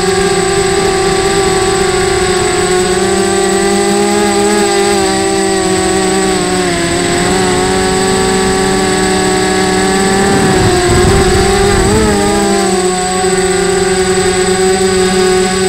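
Mini quadcopter's electric motors and propellers buzzing, heard from its onboard camera, a steady multi-tone hum with a constant thin high whine above it. The pitch sags and wavers a few times midway as the throttle changes, grows rougher and louder for a couple of seconds, then settles steady again.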